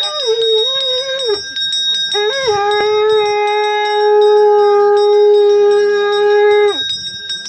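Metal puja bell rung rapidly and steadily. Over it come two long blown notes from a horn, the first short and wavering, the second held steady for about four and a half seconds before breaking off near the end.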